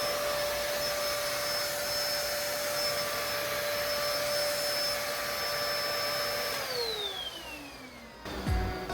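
Vacuum cleaner running with a steady whine, then switched off about two-thirds of the way in, its whine falling in pitch as the motor winds down. Music starts near the end.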